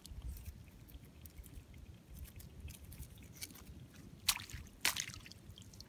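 Wet rustling and small clicks as hands handle a mud crab and tie it up with strands of seagrass, with two sharper crackles about half a second apart a little past four seconds in.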